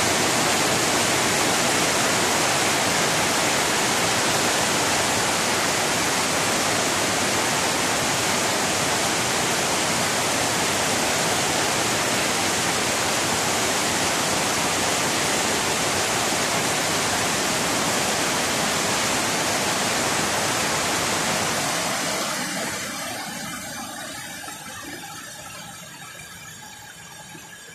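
Heavy rain pouring down in a steady, dense hiss, fading out over the last five or six seconds.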